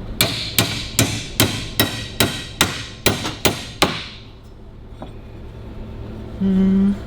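A hammer striking metal bar about ten times in quick, even succession, each blow ringing briefly, as the fabricated spare-wheel clamp is shaped by hand. A short steady hum follows near the end.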